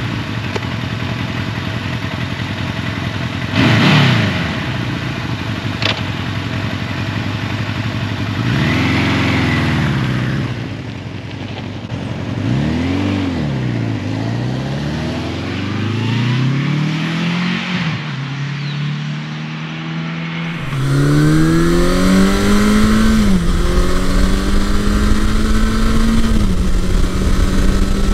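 1981 Suzuki GS1100E's air-cooled inline-four running. It idles with a sharp blip about 4 s in, then the bike rides off, the revs rising and falling through several gear changes as it fades away. About two-thirds of the way in, the engine is heard from on board: it pulls through one more gear change, then holds a steady cruising note.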